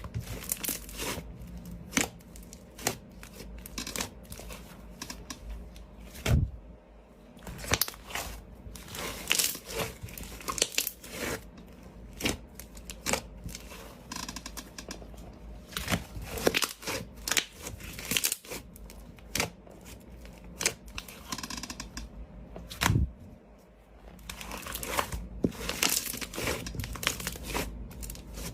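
Slime being pressed and stretched by hand, giving irregular sticky crackles and pops, some coming in quick clusters.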